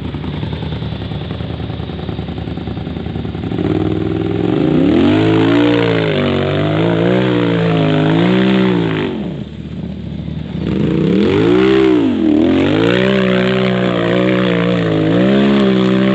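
Polaris RZR side-by-side engine running, then revving hard from about four seconds in as it attempts a muddy hill climb. The pitch swings up and down as the throttle is worked, eases off briefly around ten seconds, then climbs again and holds high.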